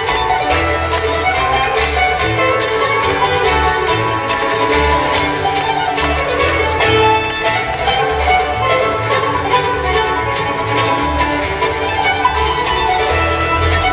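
Acoustic string band of mandolin, fiddle, banjo, guitar and double bass playing an instrumental tune live, the fiddle to the fore, with bass notes pulsing underneath.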